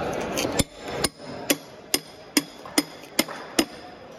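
A knife being driven through a Spanish mackerel's head on a wooden cutting block, its spine struck again and again with a blue rod: about nine sharp knocks, a little over two a second, starting about half a second in.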